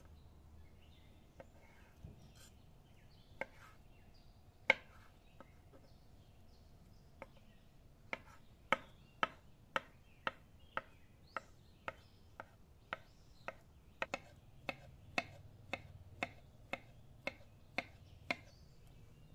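Chef's knife chopping carrots on a stone cutting board: a few scattered sharp knocks at first, then a steady run of about two chops a second through the second half as the carrot is diced.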